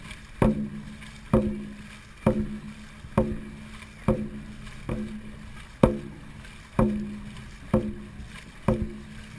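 Dragon boat drum beaten steadily, about one hit a second, each beat ringing briefly: the drum sets the paddlers' stroke rate in a race.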